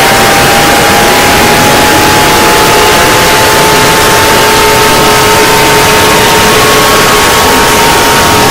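Mock Emergency Alert System alarm, heavily distorted: loud, harsh static-like noise with thin alert tones underneath that slowly rise in pitch.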